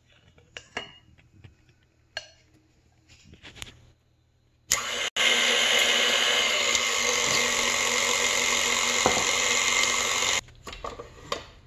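Electric stand mixer switched on with its flat beater churning cookie dough as flour goes in. It runs with a steady motor hum from about a third of the way in, breaks off for a moment just after starting, and stops abruptly shortly before the end. Before it starts there are only a few soft taps and clinks.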